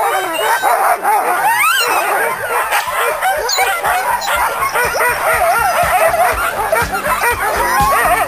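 Sled-dog huskies on a chain line barking and yipping, many dogs at once with their calls overlapping.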